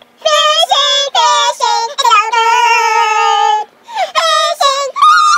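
A high-pitched singing voice with vibrato: a run of short notes, then one long held note, a brief gap, and a few more notes.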